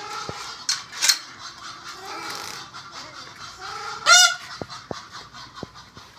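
Farm birds calling with short honking calls, the loudest one about four seconds in, followed by a few light clicks.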